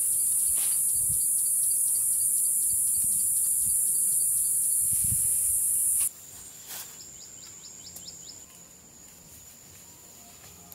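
A loud, steady, high-pitched insect chorus, with a few soft low thumps, cuts off suddenly about six seconds in. It leaves quieter outdoor ambience with a few faint chirps.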